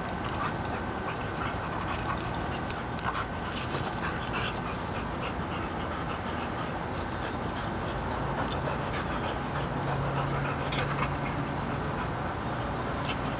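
Two American Bulldogs play-wrestling, mouthing and scuffling at each other, with a low drawn-out growl from about eight seconds in to about twelve.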